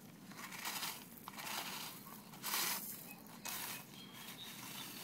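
Gravel crunching and scraping in about four short bursts as a plastic stick is drawn through it to write letters, with feet shifting on the gravel.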